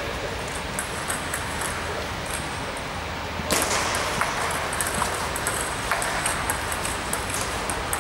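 Table tennis ball clicking off rackets and the table in a rally: a run of short, sharp taps that starts with a loud hit about three and a half seconds in. Fainter ball taps come before it.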